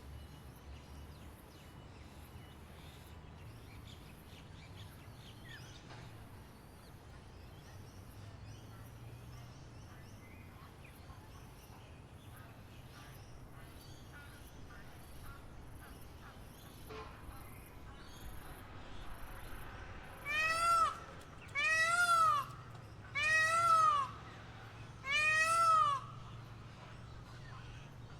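Four loud, drawn-out animal calls about a second and a half apart, each rising and then falling in pitch, in the last third. Before them there is only a faint outdoor background with a high, evenly pulsing buzz.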